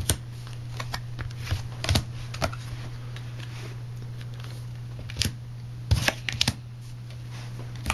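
Paper playing cards being handled and laid down on a wooden tabletop: scattered sharp slaps and snaps, with three quick ones about six seconds in. A steady low hum runs underneath.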